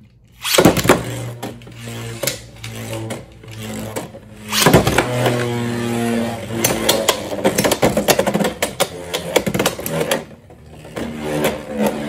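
Two Beyblade X spinning tops launched into a plastic stadium, about half a second in. They spin with a whirring hum that shifts in pitch and strike each other and the stadium wall again and again with sharp clacks. There is another loud run of clashes a little under five seconds in.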